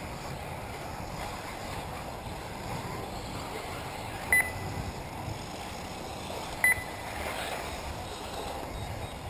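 Steady outdoor background of wind on the microphone and 1/8-scale electric off-road RC buggies running on the track. Two short electronic beeps, about two seconds apart, are the loudest sounds.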